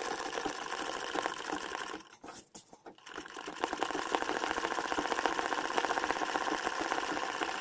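Old domestic sewing machine running fast, doing machine embroidery with rapid, even needle strokes. It stops about two seconds in and starts up again about a second later.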